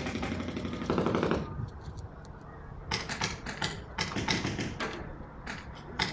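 Paintball gunfire: a rapid rattling burst of shots about a second in, then several quick volleys of sharp pops over the following seconds.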